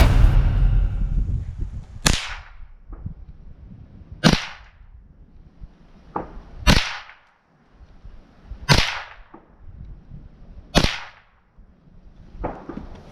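Five shots from a Rossi RS22 .22 rimfire rifle, fired one at a time about two seconds apart as a five-round group, each a sharp crack.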